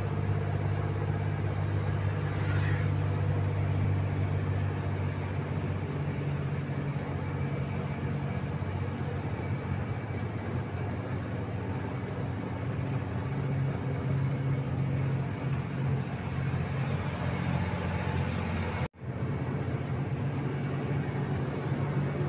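Heavy truck's diesel engine running steadily at cruising speed, heard from inside the cab as a low drone over road noise. The sound drops out for an instant about three quarters of the way through.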